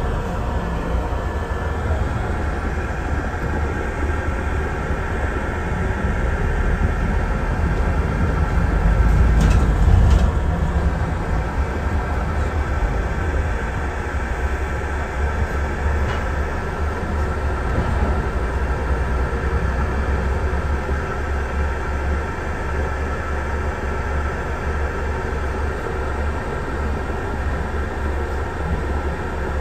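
Steady low drone of a double-decker bus heard from inside on the upper deck: engine and road rumble with a layer of steady whining tones. It swells louder for a couple of seconds about eight to ten seconds in, then settles back.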